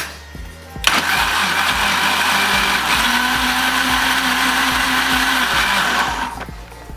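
Countertop blender motor running at full speed, puréeing spinach leaves with water. It switches on suddenly about a second in, its pitch steps up partway through, and it winds down near the end.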